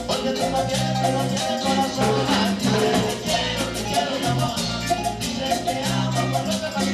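Latin dance band music with a repeating bass line and a quick, even shaker and percussion beat.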